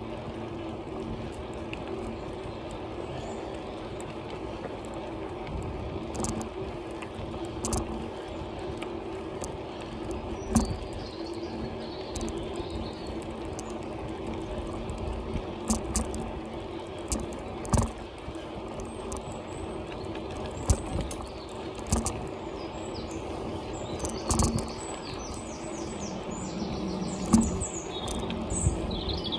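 Bicycle rolling along a paved cycle track: steady tyre and rolling noise, broken by scattered sharp knocks and rattles from bumps in the path. Birds chirp here and there, more near the end.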